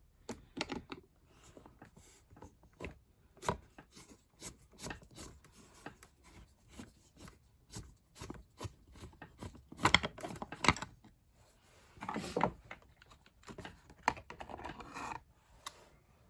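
Screwdriver working a screw out of a table fan's rear housing, with parts being handled: irregular clicks, ticks and short scrapes, and a louder clatter about ten seconds in.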